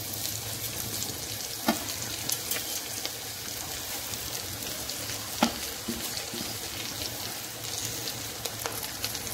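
Oil sizzling steadily in an earthenware pot as handfuls of fresh moringa leaves are dropped onto frying onions, garlic and chillies, with a couple of sharp clicks.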